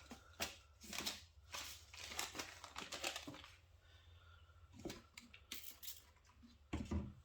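Knife blade (a 180 mm gyuto) stroked back and forth on a wet finishing whetstone with slurry: a string of irregular rasping strokes, several in the first few seconds and more near the end.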